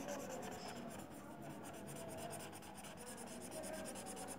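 Blue marker scribbling on paper in quick back-and-forth strokes, colouring in a drawing: a fast, steady scratching.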